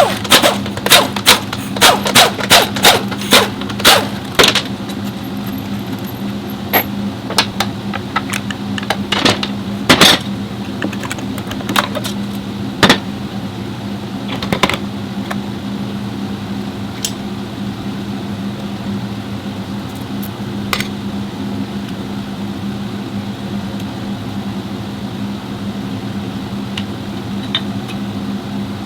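Sharp metallic clanks and knocks, as of tools and metal parts being handled, coming quickly and evenly, about two or three a second, for the first few seconds, then scattered, then only now and then, over a steady low hum.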